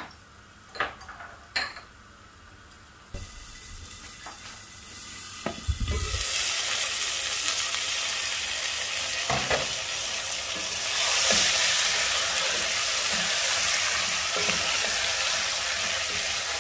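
Diced potatoes, red onion and spices frying in oil in an open pot, sizzling steadily while a wooden spoon stirs them. The pot is quiet for the first few seconds, with a few faint clicks and a low thump. The sizzle starts about six seconds in and grows a little louder midway.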